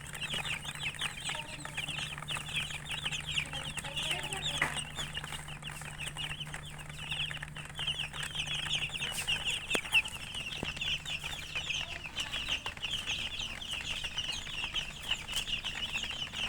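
A brood of chicks peeping continuously, many short high cheeps overlapping without a break.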